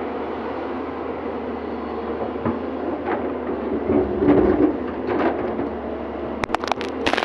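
Excavator's diesel engine running steadily, with rough scraping and knocks through the middle and a quick run of sharp clicks near the end.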